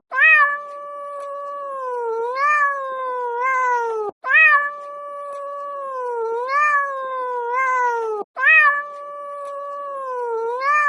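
Cat meowing in long, drawn-out calls that rise and waver in pitch and run into one another. The same pattern repeats about every four seconds, with a brief cut between the repeats.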